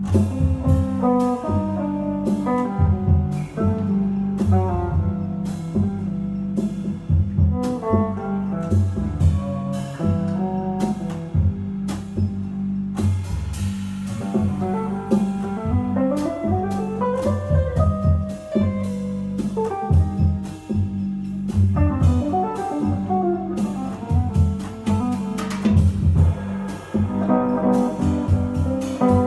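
Live jazz combo playing: upright bass and drum kit under a melodic line, with a rising glide in the melody about halfway through.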